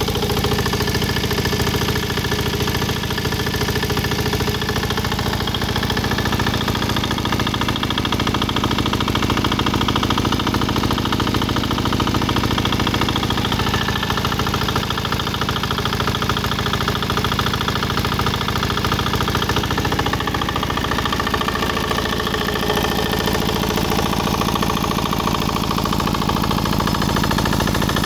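Changfa single-cylinder diesel engine running steadily, driving a water pump, its firing strokes fast and even. Its tone shifts slightly about two-thirds of the way through.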